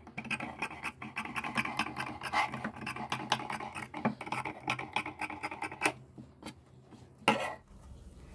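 Large tailor's shears trimming the seam allowance of a stitched cloth collar: a quick run of snips with the blades scraping through the fabric for about six seconds, then fewer sounds and one louder stroke as the cloth is handled.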